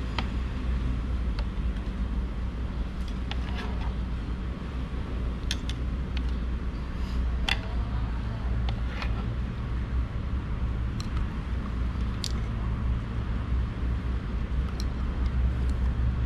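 Steady low drone of a vehicle engine running, with scattered light clicks and taps of a screwdriver against the plastic mirror housing.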